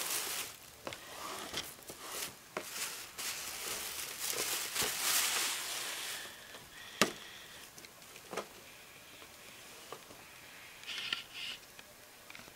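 Cardboard model-kit boxes being handled and slid over a surface: rustling and scraping for about the first six seconds, then a few sharp taps and knocks, the loudest about seven seconds in.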